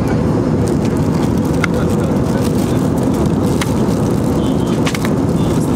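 Steady cabin noise of an Airbus A320-family airliner, a constant low rush of engine and airflow, with a few faint clicks.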